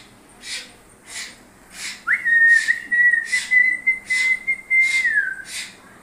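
One long whistled note, held steady for about three seconds, starting with a quick upward slide and falling away at the end. Under it a faint hiss pulses about three times every two seconds.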